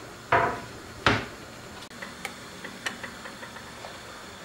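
Two sharp clattering knocks of kitchenware about a second apart, the first with a short ring. Then a few faint ticks over a steady low hiss from a pot of potatoes simmering on a gas stove.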